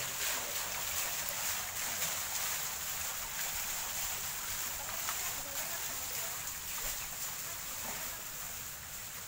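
Water from a stone garden fountain splashing into its basin, a steady rushing hiss that slowly fades.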